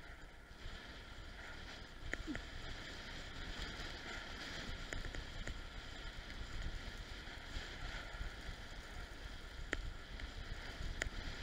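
Bicycle rolling along a paved lane: steady tyre hiss on the asphalt with a low rumble of wind buffeting the microphone, and a few sharp clicks.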